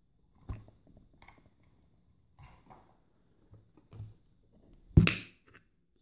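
A heavy brass padlock handled by hand: scattered light clicks and knocks, with one louder knock about five seconds in.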